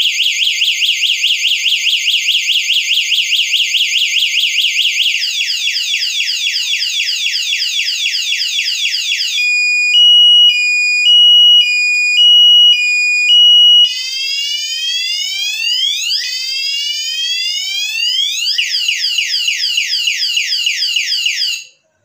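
Wireless bicycle anti-theft vibration alarm set off by a jolt while locked, sounding a really loud electronic siren. It cycles through several patterns: a fast warble, then falling chirps, then two alternating tones about twice a second, then rising and falling sweeps, then falling chirps again. It cuts off suddenly near the end.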